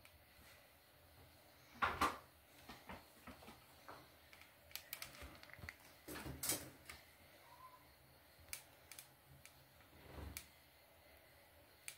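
Faint, scattered knocks and clicks from things being handled at a bathroom sink, the loudest about two seconds in and again about six and a half seconds in.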